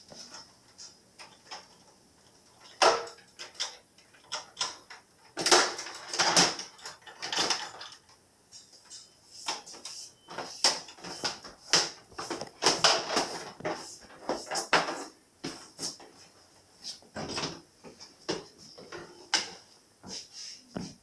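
Scattered clicks and knocks of an upright vacuum cleaner being handled and its cord let out, the vacuum switched off.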